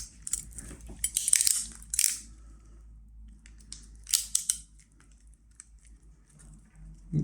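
RJ45 crimping tool squeezing a pass-through plug onto Cat5e/Cat6 cable and shearing off the protruding wire ends: crunchy clicks and snaps about a second in and again about four seconds in.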